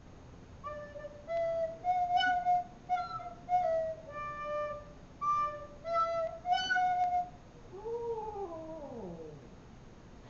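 A recorder plays a short run of steady, separate notes. Then a dog gives one howl that slides down in pitch for a second or two.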